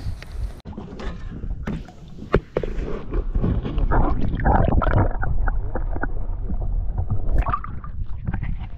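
Muffled gurgling and sloshing of lake water around a camera held underwater. The high end cuts off about half a second in as it goes under, and the water noise grows louder about two and a half seconds in.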